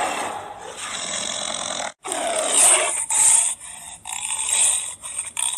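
Big-cat growls and roars, edited and blended from two cat species to imitate a hybrid such as a liger or leopon. One clip cuts off abruptly about two seconds in, and another follows with several separate calls.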